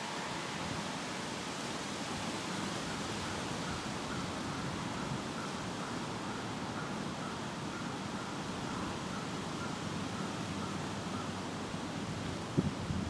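Steady wind noise and rustling outdoors, with a faint high note repeated about twice a second through the middle, and two short knocks near the end.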